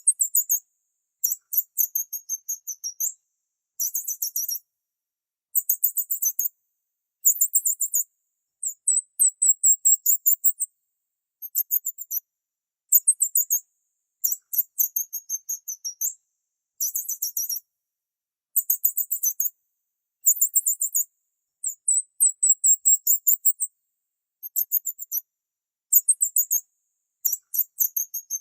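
Very high-pitched bird chirping: short, rapid trills repeated about once a second, with dead silence between them.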